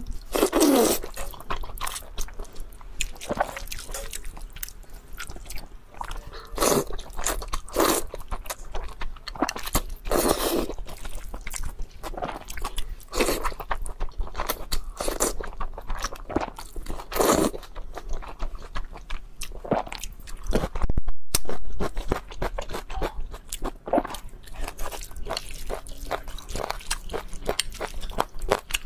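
Close-up eating sounds of wide flat noodles in sesame sauce: repeated wet slurps as strands are sucked in, with chewing and biting between them.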